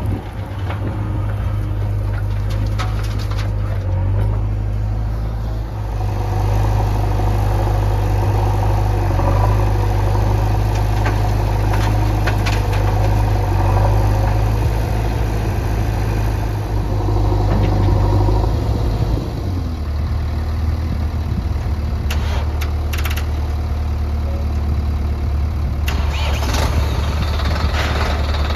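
Diesel engines of a backhoe loader and tractors running at work, a steady low drone that drops to a lower note about two-thirds of the way through, with a few sharp knocks.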